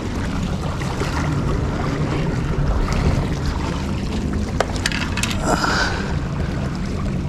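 Wind buffeting the microphone over the wash of small waves against shoreline rocks, with a few light clicks about four and a half to five seconds in.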